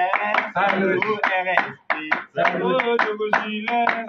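Several people clapping their hands in a steady rhythm, about three claps a second, while a man's voice sings or chants along, with a short break about two seconds in.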